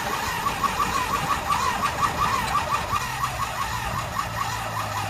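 1972 Honda CB500 Four's electric starter cranking its inline-four engine in an even rhythm of several beats a second, with a low steady hum joining about three seconds in.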